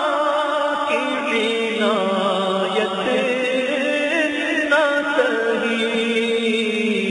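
A voice chanting a melody in long held notes that waver and bend in pitch.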